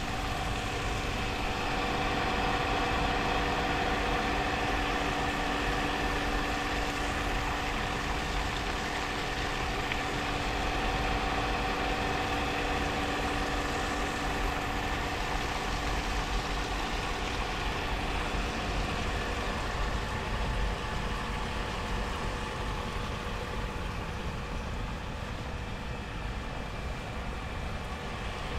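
A machine running steadily: a continuous mechanical hum with several steady tones over a noisy bed. The lowest of the tones stops about two-thirds of the way through while the rest runs on.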